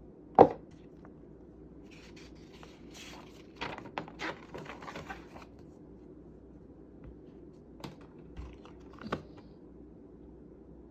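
A box and its packaging being handled: a sharp knock, then a few seconds of scratching and tearing, and a couple of lighter knocks later on.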